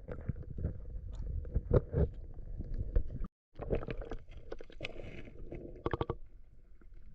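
Water splashing and sloshing with many short knocks, cutting out completely for a moment a little over three seconds in.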